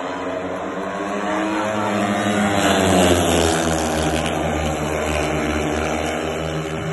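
Speedway motorcycles' 500 cc single-cylinder methanol engines running hard as the pack of riders races round the bend and past. The sound is loudest about three seconds in, and the engine pitch dips and rises as they pass.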